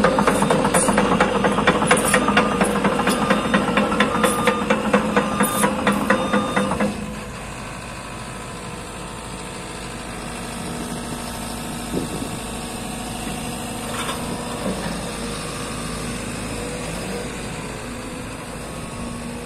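JCB JS220 tracked excavator's JCB diesel engine running under a loud, rhythmic clatter that stops suddenly about seven seconds in. The engine then settles to a quieter steady idle, with a few faint knocks.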